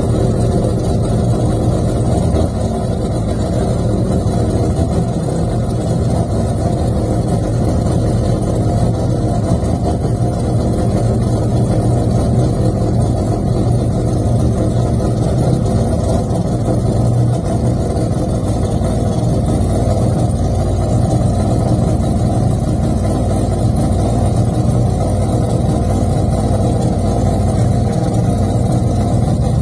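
Mazda 767B's RE13J four-rotor rotary racing engine idling loudly and steadily, the car standing still.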